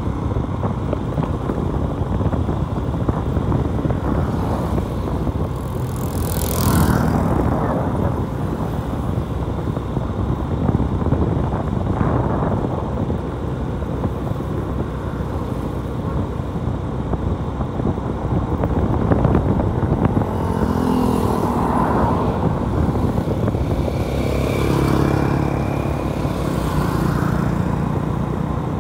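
Motorcycle in motion: steady engine, wind and road noise, with louder swells about 7 seconds in and again later on.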